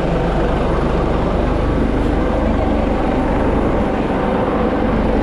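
Coast Guard MH-65 Dolphin rescue helicopter running close by: a loud, steady rotor and turbine noise.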